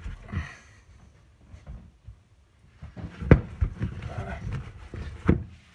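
Pizza dough being kneaded vigorously by hand in a plastic mixing bowl: the dough slaps and is pressed against the bowl, and the bowl knocks on the worktop in an irregular run of thuds that starts about three seconds in after a quiet stretch.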